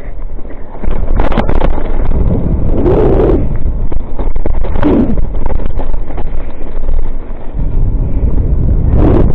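Wind buffeting a helmet-camera microphone on a downhill mountain bike run: a loud, steady low rumble. Sharper knocks and rattles from the bike come about a second in, around three and five seconds in, and near the end.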